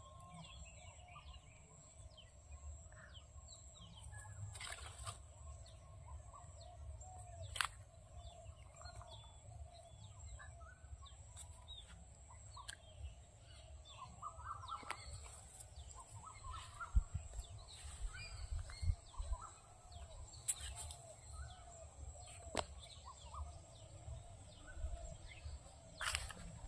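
Faint outdoor ambience: birds chirping and calling in the background over a steady high-pitched whine and a low rumble, with a few sharp clicks.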